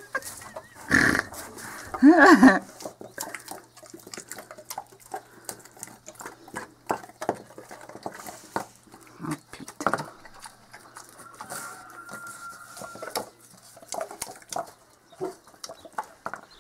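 Young sow grunting loudly twice in the first few seconds, then snuffling and rooting with her snout under bedding, with many small clicks and crunches.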